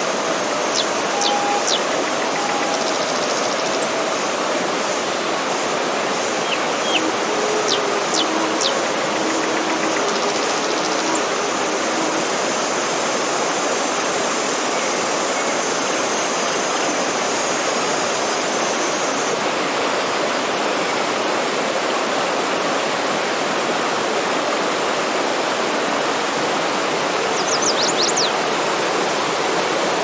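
Forest stream rushing over rocks in a small rapid, a steady, even roar of water. A few brief high chirps of birds sound over it near the start, in the middle and near the end.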